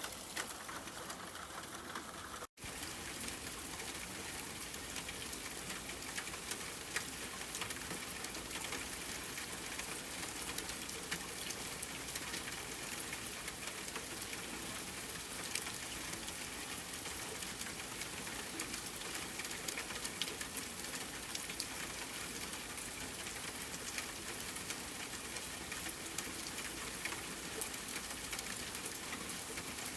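Steady rain falling, an even hiss of many small drop impacts. There is a sudden brief dropout to silence about two and a half seconds in.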